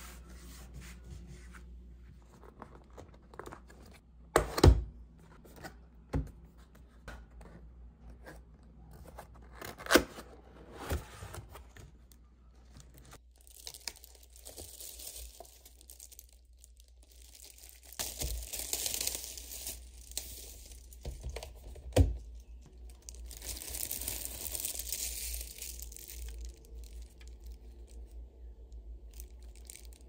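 Plastic wrap crinkling and tearing in stretches as a new keyboard and mouse are unwrapped, with a few sharp knocks of things set down on the desk, most of them in the first ten seconds.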